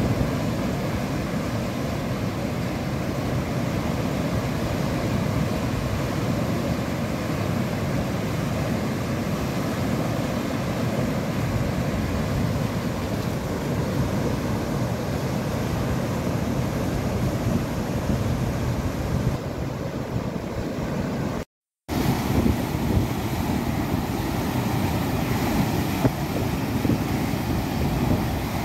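Turbulent water rushing and churning as it surges out of a concrete lift-irrigation outlet, a steady dense rush, with wind buffeting the microphone. The sound drops out for a moment about three-quarters of the way through, then carries on the same.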